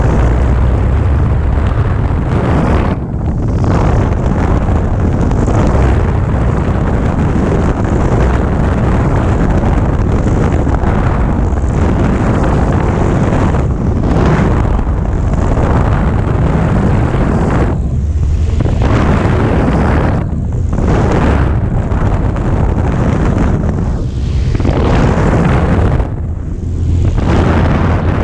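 Light high-wing airplane's engine and propeller running as it rolls along the ground, heard through heavy wind buffeting on the microphone. The sound dips briefly several times.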